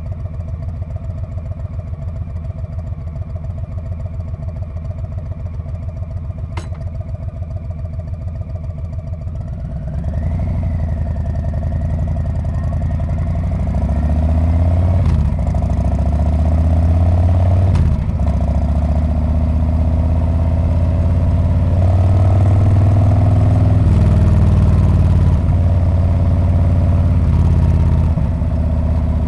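Harley-Davidson Street Bob's V-twin engine and exhaust: an even, pulsing idle, then about ten seconds in it gets louder as the bike pulls away, the revs rising and falling with short dips as it shifts up through the gears.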